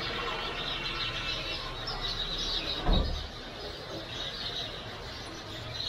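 Many birds chirping and chattering together in a steady dusk chorus over a low background rumble, with a brief low thump about halfway through.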